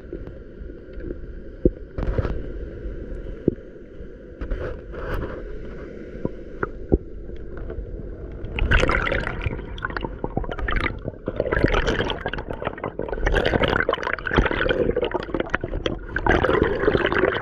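Water gurgling and splashing close to the microphone, growing heavier and more continuous from about halfway through.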